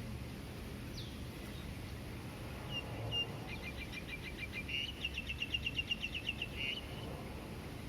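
Songbird calling over a steady low hum of distant traffic: a single falling whistle about a second in, then a fast run of repeated high notes, about eight a second, lasting around three seconds.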